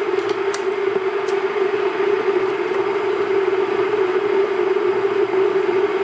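A steady hum with a rushing hiss over it, like a running machine, with a few light clicks in the first second and a half as a plastic milk bottle cap is twisted off.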